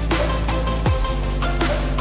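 Electronic backing music with a steady beat and heavy bass, its bass notes sliding down in pitch; no singing.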